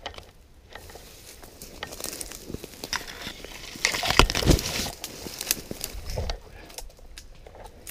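Irregular crunching and rustling, like dry leaves and twigs being trodden and pushed through, with scattered short sharp clicks. It is loudest about four seconds in.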